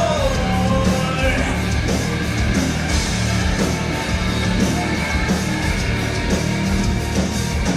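A live rock band playing a loud instrumental passage between vocal lines, with guitars, bass and a steady drum beat. A held note bends downward just after the start.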